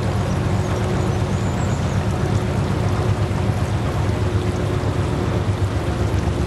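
Small boat engine running steadily: a continuous low hum with a faint steady higher tone above it.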